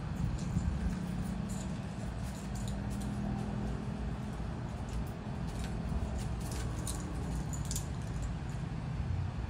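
Puppies at rough play, with scattered light clicks and scuffs, over a steady low background rumble.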